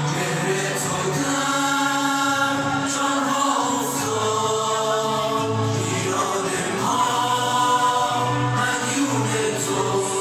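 Boys' choir singing a Persian devotional anthem (sorood) in unison into handheld microphones, in long held notes that change pitch every second or two.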